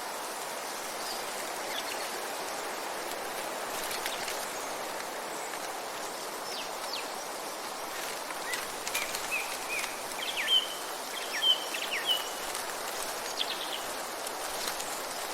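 Forest ambience: a steady outdoor hiss with small songbirds chirping over it, a run of quick high chirps and short whistled notes clustering between about eight and thirteen seconds in.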